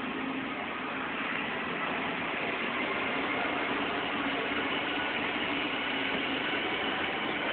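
Double-decker bus engine running as the bus climbs a winding hill road, heard from the top deck under a steady rushing road and wind noise that grows slightly louder.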